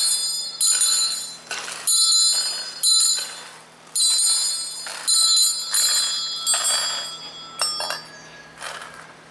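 Small metal hand bell rung in single strokes about once a second, each stroke ringing and dying away before the next, the last few strokes fainter.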